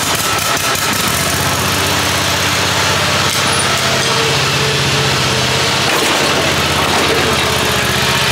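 Kawasaki 27-horsepower V-twin engine of a zero-turn mower running steadily just after starting, settling into an even idle about a second in. It is left running after a fresh oil and filter change so the new oil circulates through the filter.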